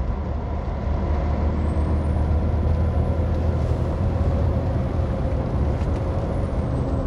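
Heavy truck cruising, heard from inside the cab: steady engine drone with road noise from the tyres on wet asphalt.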